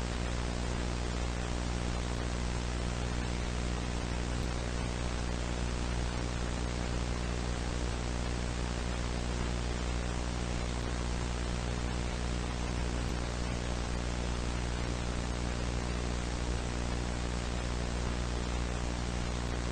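Television static: a steady hiss of white noise with a low electrical hum under it, unchanging throughout. It is the sound of the broadcast signal lost off the air.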